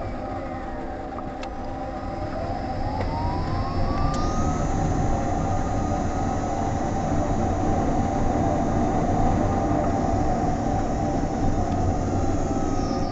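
Honda Fit GR3 hybrid driving with steady road rumble and an electric drive whine. The whine rises in pitch as the car picks up speed a few seconds in, holds, then falls away near the end as the car slows.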